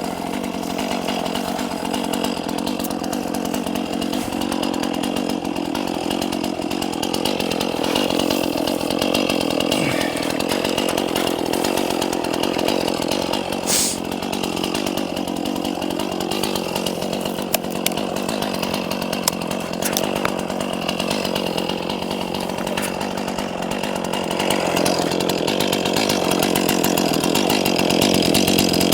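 Gas chainsaw running steadily under load while cutting into a dead spruce tree, its engine pitch wavering as the bar bites and eases in the cut.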